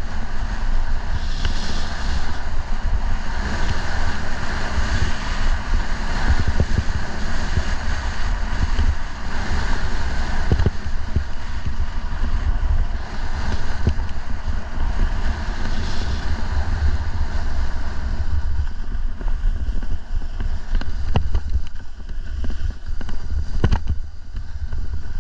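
Wind buffeting the camera microphone while snowboarding downhill, over a steady hiss of the board sliding and scraping across the snow, with a few sharp knocks near the end.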